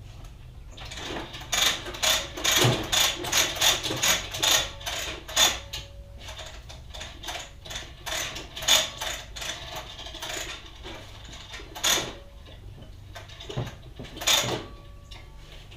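Clicking and rattling of tools and fittings being handled in a plastic tool case while an air hose is readied. A dense clatter in the first several seconds, then scattered clicks with a few sharper ones later on.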